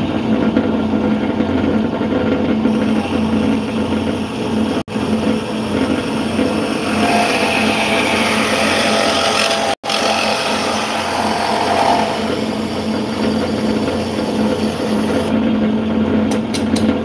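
Old vertical metal-cutting bandsaw running with a steady hum, a sound the owner says is not right though he doesn't know why. It cuts through an aluminum pipe, and the sound turns harsher and brighter while the blade is in the cut, about midway through.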